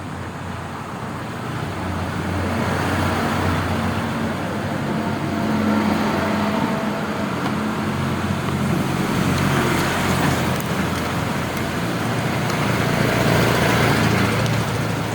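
Konzert AV-502A-USB amplifier under test through its speaker, giving out a loud, steady hiss with a low hum under it, louder from about two seconds in, as the newly replaced master volume control is checked for its scratchy sound.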